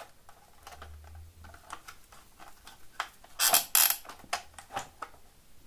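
Small clicks and scrapes of a screwdriver turning a terminal screw and handling wire on the back of a plastic switch board, with a short louder scraping spell a little past the middle.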